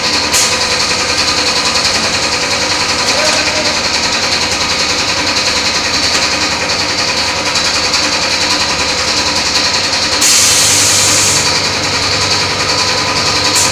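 Thermocol plate making machine running, a steady mechanical hum and whine made of several held tones, with a louder burst of hiss about ten seconds in that lasts about a second.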